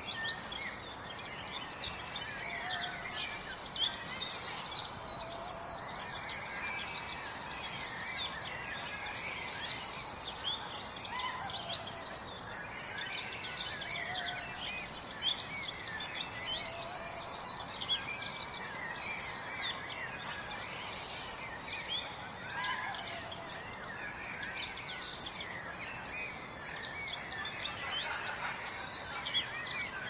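Many birds chirping and calling throughout, their short notes coming thick and fast, over the steady rush of a waterfall.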